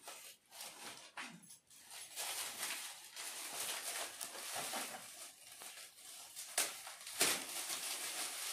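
Metallic foil gift wrap crinkling and rustling as hands pull at it to open a present, with two louder crackles about two-thirds of the way through.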